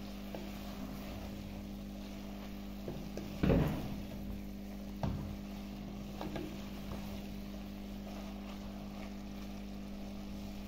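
Wooden spatula stirring and turning cooked saag greens in an earthenware pot, with a few scrapes and knocks against the pot, the loudest about a third of the way in. A steady low hum runs underneath.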